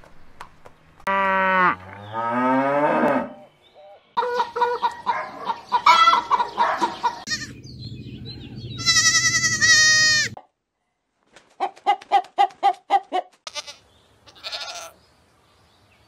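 Goats bleating in a string of separate calls with short gaps, among them a long, high, wavering bleat about nine seconds in and a quick run of short pulsed calls after it.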